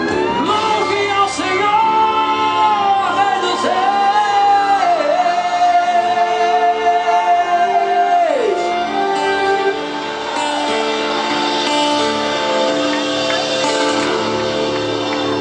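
Gospel song: a singer holds one long note for about seven seconds and slides down off it, over guitar-backed accompaniment. After that, sustained instrumental chords carry on without the voice.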